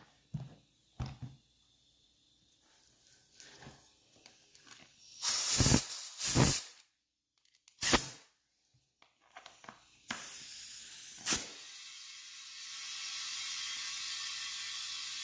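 Compressed air hissing from an air-compressor hose into an ATV tire being inflated to seat its bead: a few short blasts about five to eight seconds in, then a steady hiss of air flowing in from about ten seconds on. The bead has not yet popped into place.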